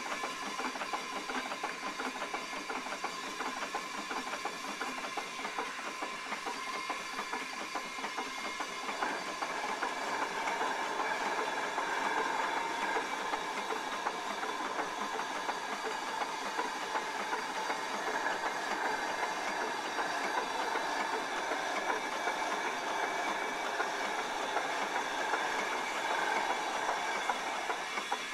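Ransomes & Rapier railway crane running as it works a heavy chained load, a steady mechanical clatter with fast ticking that gets louder about nine seconds in.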